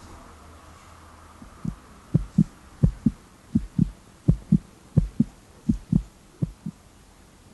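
Heartbeat sound effect: low double thumps, lub-dub, about 85 beats a minute. They come in about a second and a half in, grow loud, then fade out near the end, over a faint low hum.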